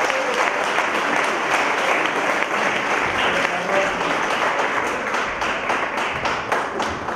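Audience applauding: a dense patter of many hands clapping, dying down near the end.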